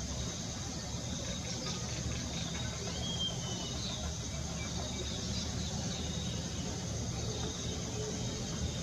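Steady high-pitched chorus of crickets or similar insects, with a few brief bird chirps, one clearer about three seconds in, over a low background rumble.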